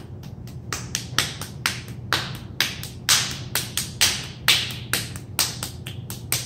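Clay-covered hands being brushed and clapped together, a steady run of sharp slaps about four a second.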